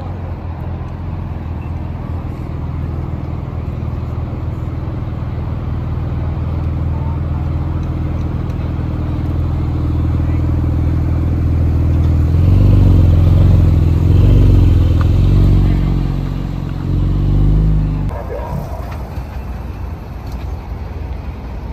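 Porsche 911 Turbo S twin-turbocharged flat-six engine running as the car rolls past at low speed. It grows louder as the car nears, stays loudest for several seconds, then drops away suddenly.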